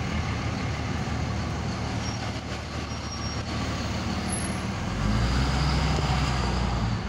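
Truck engine and road noise heard from inside the cab, a steady low hum with no speech. About five seconds in, past an all-way stop, the engine's hum grows louder as the truck pulls away.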